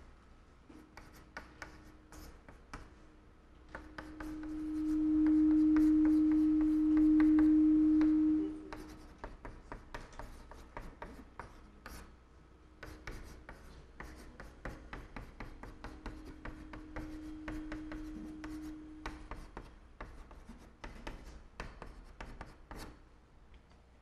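Chalk tapping and scraping on a blackboard as Chinese characters are written, a string of short clicks and strokes. A steady low tone comes in about four seconds in and holds for about four seconds as the loudest sound, then returns more faintly later on.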